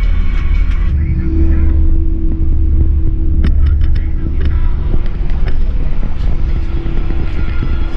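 Inside a moving coach bus: a deep, steady rumble of engine and road with a steady hum, and scattered sharp ticks and rattles, a cluster of them about halfway through.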